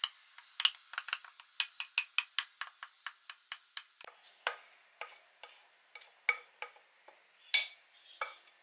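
Wooden spatula scraping and knocking against a bowl and the rim of a stainless steel saucepan as wet sorrel (hibiscus) petals are scraped into the pan: a quick, irregular run of light clicks and knocks, growing sparser after about four seconds.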